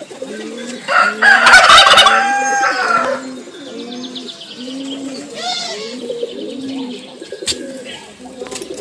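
A rooster crows once, starting about a second in and lasting about two seconds, over a steady background of birds cooing.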